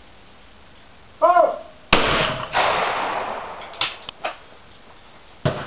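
A shooter's short call, then a shotgun shot at a clay with a second shot about half a second after it, both ringing on for about a second. A few light clicks follow, and another shotgun shot goes off just before the end.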